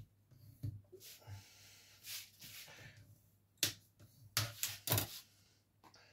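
Sheets of cardstock being handled and folded by hand: soft rustling, then several short, crisp crackles of card about three and a half to five seconds in.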